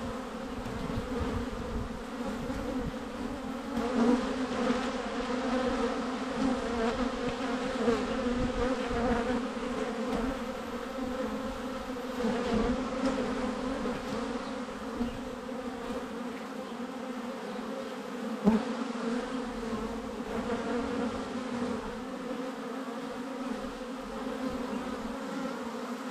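Honey bees buzzing as a crowd of them flies about a hive entrance: a steady, droning hum, swelling briefly louder twice as single bees pass close by.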